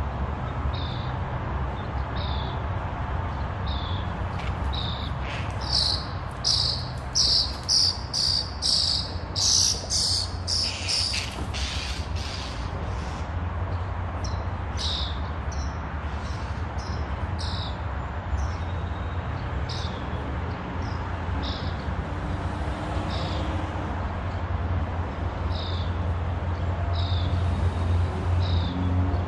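Small birds chirping: a short high call repeated about once a second, with a flurry of louder, rapid chirps from about six to twelve seconds in, over a steady low hum.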